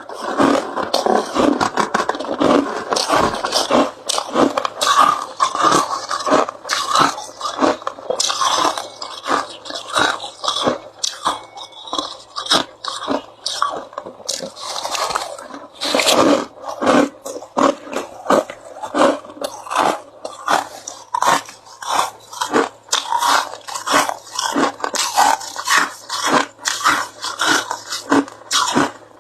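Ice being bitten and chewed, a fast, irregular run of crunches, several each second.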